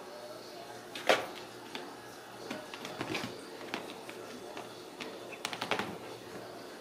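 Ragdoll kittens scrambling over an upholstered chair and wooden cabinet: scattered light taps and clicks, with one sharper knock about a second in and a quick run of taps near the end.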